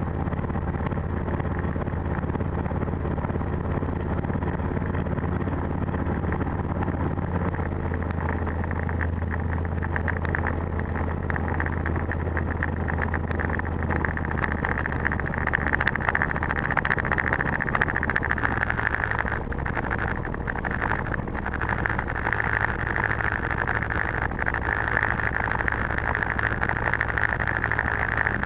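Gyroplane's piston engine idling with the throttle closed during a gliding descent to land, heard inside the enclosed cockpit over steady airflow noise. The engine's low hum changes about ten seconds in, and the airflow hiss grows louder in the second half.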